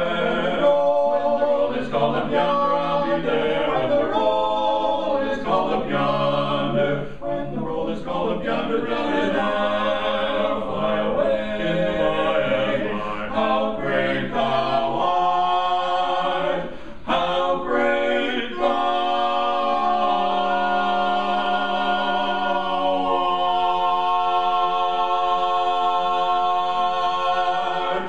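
Male vocal quartet singing a cappella in four-part harmony, the close of a gospel song. From about two-thirds of the way in they hold one long final chord, steady to the end.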